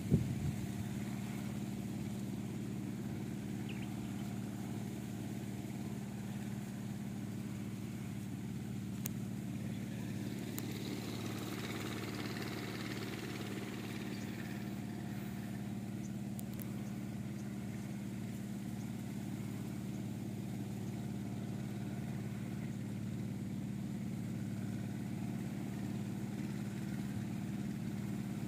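An engine running steadily at idle, a constant low hum that holds the same pitch and level throughout. A brief thump comes at the very start.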